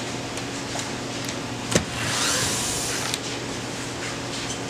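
Cordless power screwdriver whirring steadily as it backs out the screws holding a door glass frame's white interior covering, with one sharp click a little under two seconds in.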